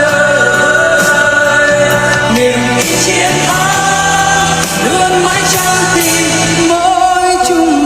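A song with sung vocals over an instrumental backing; the low bass notes drop out near the end.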